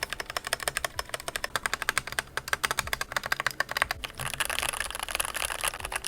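Typing on a stock Keychron K10 Pro mechanical keyboard with its factory-lubed Keychron K Pro Brown tactile switches: a fast, continuous run of keystroke clacks. The clacks grow denser and run together from about four seconds in.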